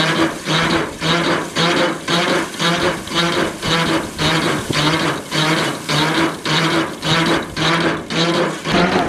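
Rice threshing machine running, its drum humming and rattling in an even pulsing rhythm of about two pulses a second as paddy is threshed.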